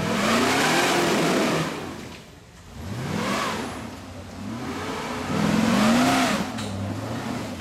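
Off-road Jeep's engine revved hard in three bursts, each rising and then falling in pitch, as it pulls up a steep rocky, muddy climb.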